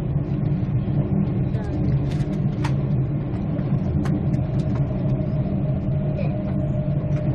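Interior running noise of a Queensland Rail Tilt Train at speed: a steady low rumble with a constant hum, and a few sharp clicks from the wheels on the track.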